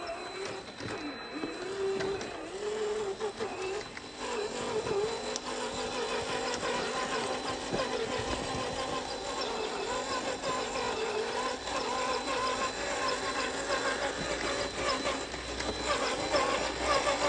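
Cross RC Demon scale crawler's electric motor and G2 aluminum transmission whining as the truck drives, the pitch rising and falling with the throttle.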